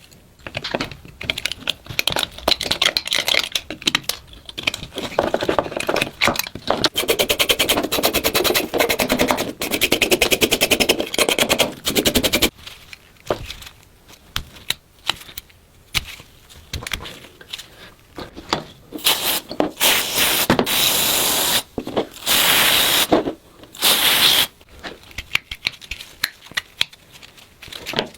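Rapid back-and-forth scraping on the rusty metal of a pocket knife for about twelve seconds. Then come scattered scrapes and clicks, with a few steadier rough scrubbing stretches of a second or two each.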